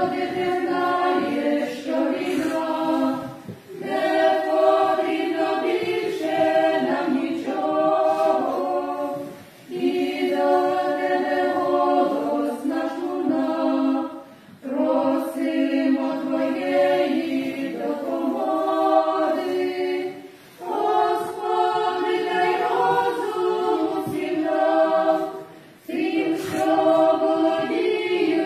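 Small women's vocal ensemble singing unaccompanied in harmony, in phrases of about five seconds with brief pauses for breath between them.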